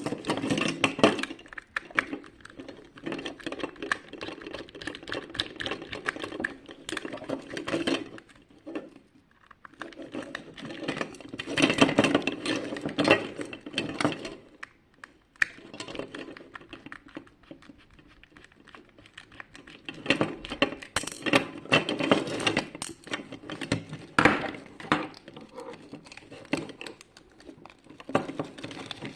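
Irregular clicking, scraping and clattering of hands and tools working on the parts of an alarm clock being taken apart, with a pause about nine seconds in and a longer lull from about fifteen to nineteen seconds.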